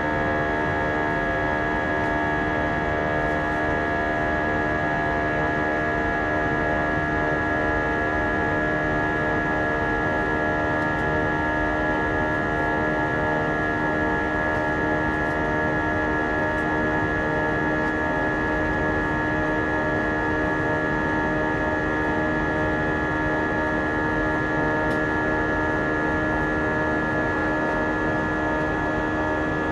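Airbus A320 turbofan engine running during the climb after takeoff, heard from inside the cabin next to the wing: a steady hum with several steady whining tones over a noisy rush.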